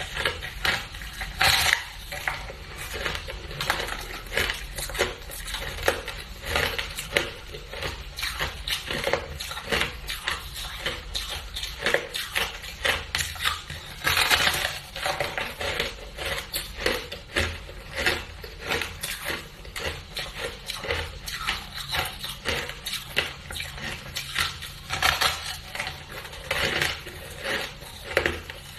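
A person biting and chewing a block of frosty, craggy ice frozen in a flower-shaped mould: a fast, continuous run of crisp crunches, with louder bites now and then.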